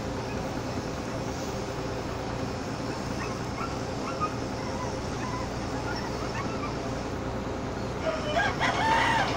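Ship's engine running with a steady drone. A rooster crows loudly near the end, with fainter crowing or calls in the distance before it.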